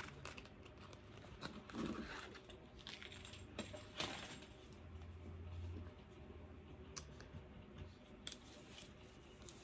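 Faint rustling with scattered light clicks and taps as hair and an elastic headband are handled.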